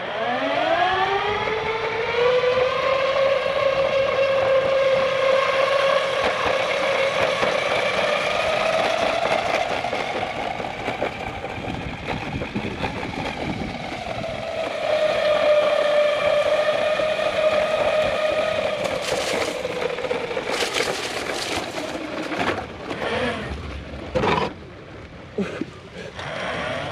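Ecomobl M24 AWD electric skateboard motors whining under power. The pitch rises as it speeds up, holds steady, eases off and climbs again, then falls away near the end amid a few sharp knocks.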